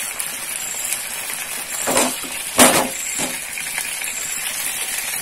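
Fried chicken pieces being tipped into a nonstick frying pan of simmering beetroot and ketchup sauce: three knocks and clinks against the pan about two to three seconds in, the middle one loudest, over a steady sizzle from the pan.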